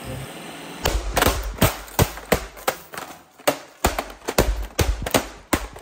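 Robot vacuum being struck over and over with a wooden baseball bat: a rapid run of hard knocks and thuds on its plastic shell, about three a second, starting about a second in.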